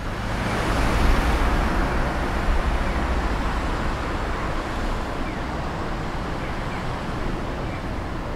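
Street traffic noise with a low rumble, louder in the first couple of seconds as a vehicle passes, then settling into a steady hum of road traffic.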